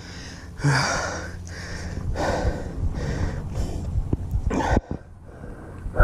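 A man breathing hard, several heavy gasping breaths about a second apart, winded after falling into a stream.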